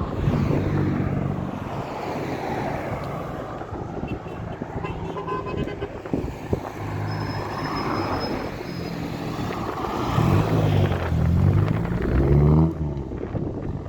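A motor vehicle's engine running close by, a steady low hum whose pitch swings up and down a couple of seconds before the end, then falls away suddenly.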